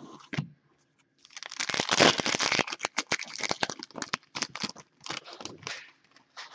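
Foil wrapper of a hockey card pack being torn open and crinkled by hand, starting about a second in as a dense burst of crackling and thinning into scattered crinkles as the cards are pulled out.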